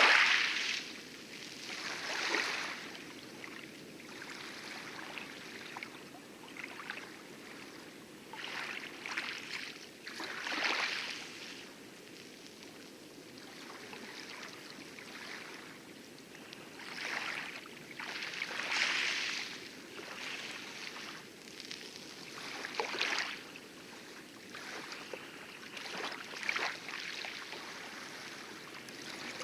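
Light wavelets lapping and splashing on coral at the lagoon edge in irregular bursts, the loudest right at the start, over a steady low rumble of distant heavy surf breaking on the outer reef.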